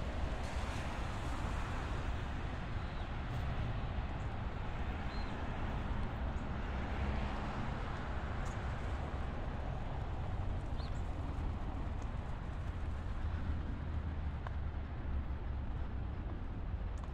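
Steady low rumble of vehicle noise, level and unbroken throughout.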